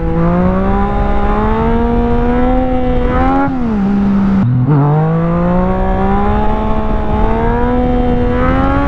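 Yamaha FZ-09's inline three-cylinder engine pulling hard. Its pitch climbs for about three seconds, drops back for a second or so, then climbs steadily again for about four seconds before falling off near the end.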